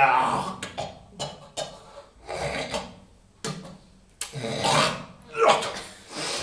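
Two tin cans rubbed and scraped against each other in a series of short rasping strokes, with a few light clicks between them.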